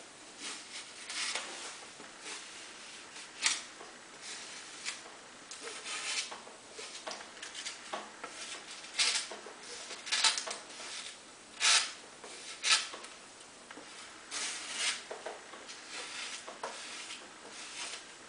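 Irregular rubbing and scraping strokes on a small piece of white sheet material worked by hand, a stroke every half second to a second, the sharpest ones a little past the middle.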